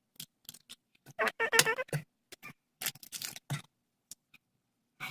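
Irregular small clicks and crinkles of a plastic-wrapped mini Baumkuchen being handled and opened, with a brief voice-like sound about a second in.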